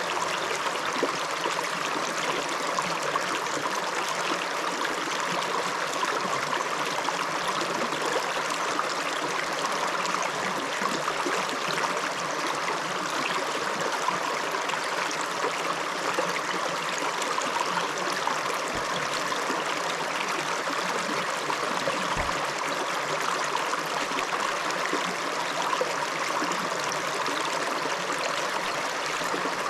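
River water flowing over its bed in a steady rush.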